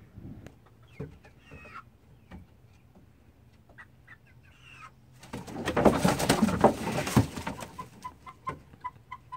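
Hens clucking softly, then about five seconds in a loud flurry of flapping and scrabbling that lasts about two seconds as the birds shift on a hinged wooden roost. Quick short clucks follow.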